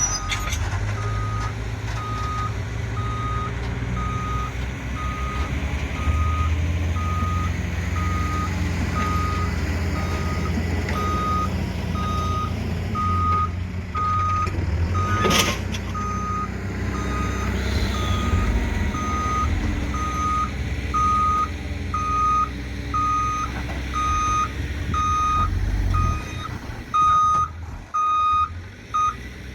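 Backhoe reversing: its back-up alarm beeps steadily, about one beep every three-quarters of a second, over the low running of its diesel engine. A single sharp knock is heard about halfway through.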